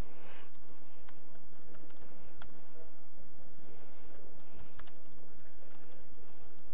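Typing on a laptop keyboard: irregular key clicks as a command is typed, over a steady low hum.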